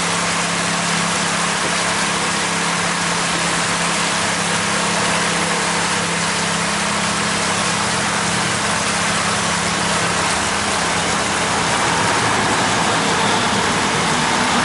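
Pontoon boat motor running steadily at low cruising speed, a low even hum under a constant hiss of water and wind.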